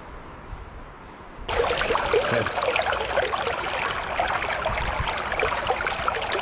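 Small shallow stream trickling and burbling over logs and debris right at the microphone, a dense crackle of tiny splashes. It cuts in suddenly about a second and a half in, after a quiet outdoor stretch.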